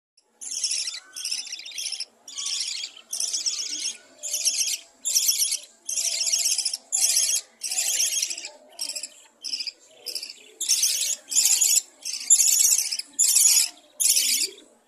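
Budgerigar chicks giving a rapid, unbroken string of raspy, buzzing calls, about one or two a second. These are the begging calls chicks make at feeding.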